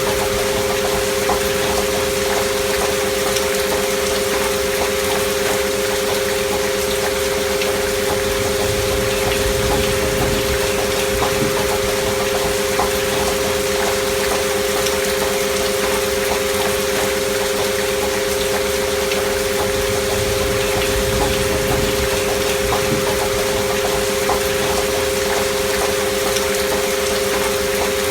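Steady rain sound with two pure sine tones held underneath it, part of a binaural meditation 'frequency' track. The tones and the rain hold unchanged throughout.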